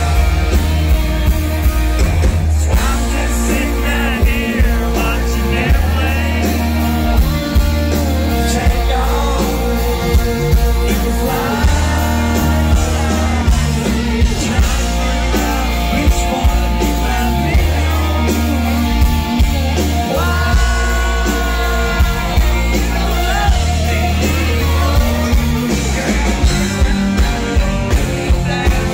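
Live country rock band with a male lead singer singing into a microphone, over heavy bass and a steady drum beat.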